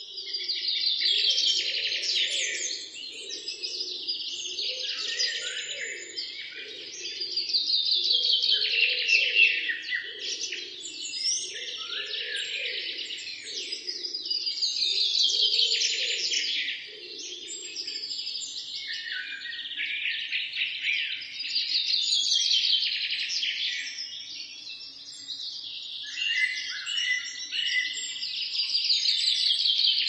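Birds chirping and twittering in a dense, continuous chorus that swells and eases in waves every several seconds.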